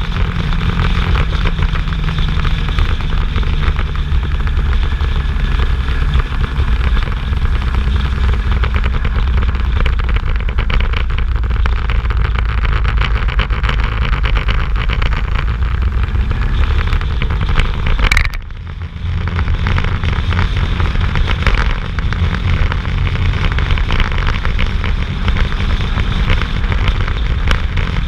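Motorcycle engine running steadily at riding speed, heard from on the bike, with wind rushing over the camera's microphone. The sound briefly drops away about eighteen seconds in, then comes back.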